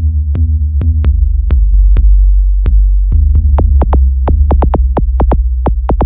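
Bass-heavy electronic trap-style ringtone beat: a deep, sustained bass under sharp drum-machine ticks, which come faster in the second half.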